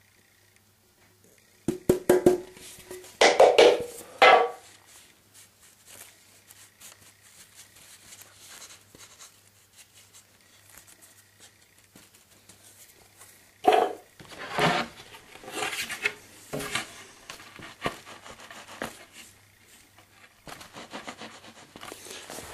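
Irregular clatter, clicks and scraping of small hard objects being handled and rubbed on a work surface, as in mixing plastic bits with super glue into a putty. The handling comes in loud clusters about two seconds in and again about fourteen seconds in, with faint ticking between.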